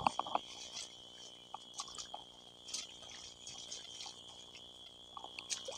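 A steady, high-pitched chorus of night insects, with scattered light clicks and rustles of people moving through undergrowth.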